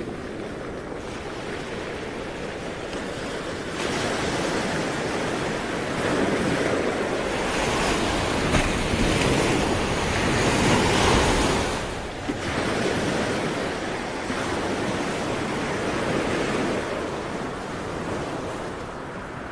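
Rushing noise of ocean surf, building to its loudest about halfway through, dropping off sharply about twelve seconds in, then swelling again more gently before easing near the end.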